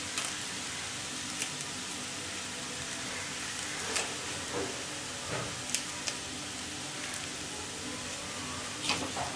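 A steel spoon stirring and tossing vegetable idiyappam (rice string hoppers) in a stainless steel kadai, with several light clicks and scrapes of the spoon against the pan over a soft steady hiss.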